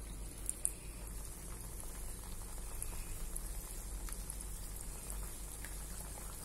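Small squares of sweet maida dough (shankarpali) deep-frying in hot oil in a steel wok: a steady bubbling.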